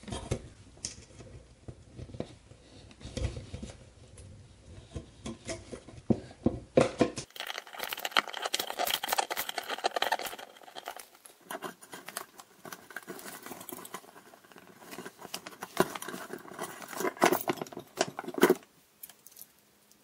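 Handling noise from wiring work in a metal electrical box: irregular small clicks, scrapes and rustles as wires are bent and a small screwdriver fastens a ground wire.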